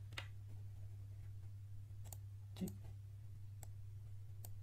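A handful of sharp, separate computer mouse clicks over a steady low electrical hum.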